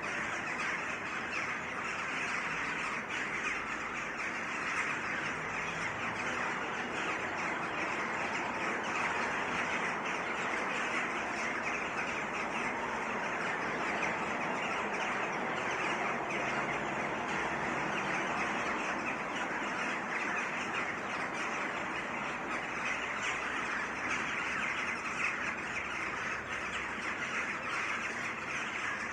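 A flock of many birds calling and chattering together in a dense, continuous chorus, with no single call standing out.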